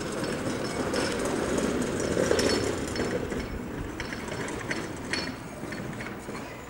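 Diesel-hydraulic locomotive engines running as a Class 14 shunter and a Class 52 'Western' move slowly. The rumble swells about two seconds in, then eases off.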